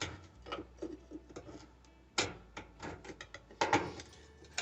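Irregular clicks and metallic knocks of hand tools and loosened parts being worked at the drilled-out, rusted bolt on an old Kenmore washer's top panel, with two louder knocks about two seconds in and near the end; no drill motor is running.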